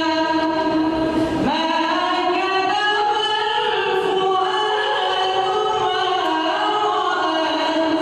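Quran reciter chanting in the melodic tajwid style, one voice drawing out long ornamented phrases with the pitch gliding between held notes. There is a short break and a new phrase begins about a second and a half in.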